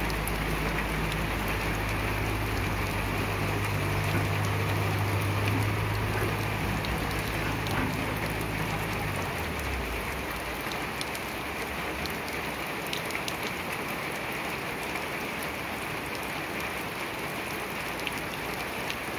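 A heavy machine engine running with a low steady drone that stops about halfway through. Under it runs a steady hiss with scattered ticks, like rain.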